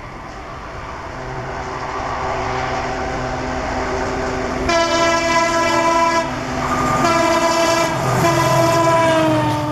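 ALCO diesel locomotive approaching with a train, its engine and wheel noise growing steadily louder, then sounding its horn in two long blasts, the second one sliding slightly lower in pitch near the end as the locomotive nears.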